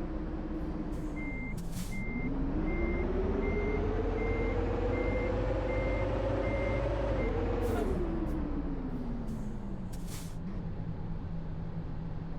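Bus drivetrain whining as the bus pulls away: the pitch rises, dips once as it shifts, climbs steadily, then falls as the bus slows. A high electronic beep repeats about twice a second while it accelerates, and a few short hisses cut in, like air-brake releases.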